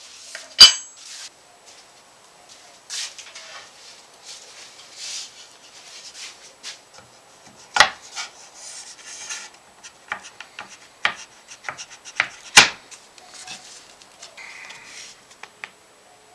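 A flame maple guitar top being handled and test-fitted on a wooden guitar body: wood rubbing and sliding on wood, with three sharp wooden knocks, the loudest about half a second in.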